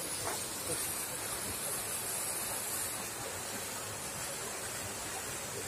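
Steady outdoor hiss, brightest and highest in pitch over the first three seconds, then settling a little.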